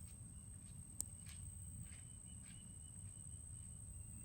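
Quiet outdoor ambience: a steady high-pitched whine and a low rumble, with a few faint chirps and one sharp click about a second in.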